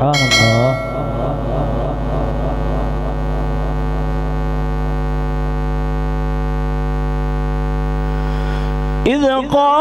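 A man's voice in Quran recitation ends a phrase, then holds one long, steady hummed note through the microphone with lips closed for about eight seconds; recitation resumes near the end. A low mains hum runs underneath.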